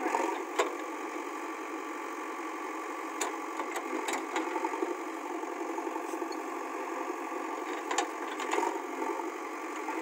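JCB backhoe loader's diesel engine running steadily as the rear backhoe digs into soil, with a few short clanks from the bucket and arm scattered through.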